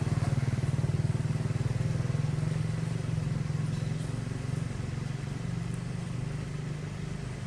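A small engine running steadily with a low, rapid pulsing, slowly growing fainter toward the end.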